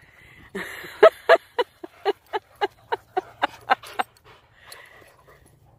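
Dogs panting hard and fast right at the microphone, about four breaths a second, after play-running. The panting stops about four seconds in.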